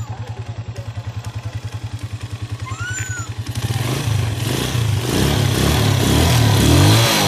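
Rusi motorcycle's single-cylinder engine idling with an even beat, then revved about four seconds in, running louder and rising and falling in pitch. It runs without the sputtering that the carburetor cleaning was done to cure.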